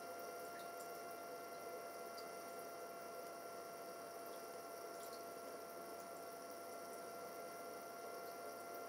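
Small cooling fan in an electronics case running with a steady hum and a thin high whine, with a few faint ticks.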